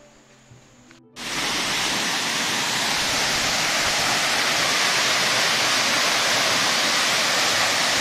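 Small waterfall pouring into a rock pool: a loud, steady rush of falling water that starts suddenly about a second in.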